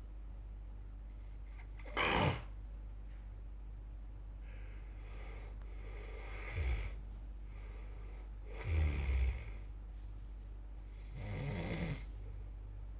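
A person snoring: a short, sharp snort about two seconds in, then three longer snoring breaths, the one near the middle loudest and deepest.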